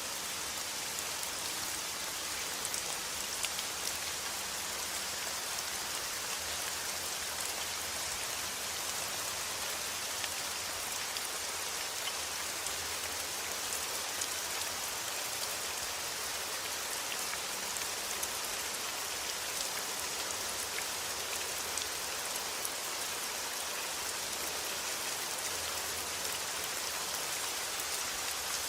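Steady rain falling, an even hiss dotted with the small ticks of individual drops hitting a surface.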